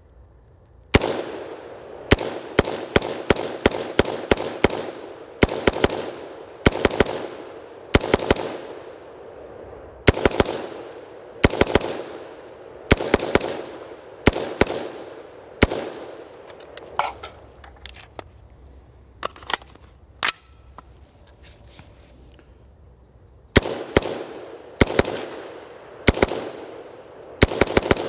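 BCM AR-15 rifle in 5.56 fired in quick semi-automatic strings, each shot ringing out with an echo. The strings come with short gaps between them, and there is a lull of a few seconds before a last string near the end.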